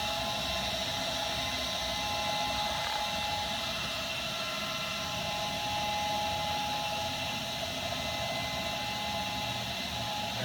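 A Laguna SmartShop II CNC router running with its vacuum blower and dust collection: a steady rushing-air noise with several held whining tones.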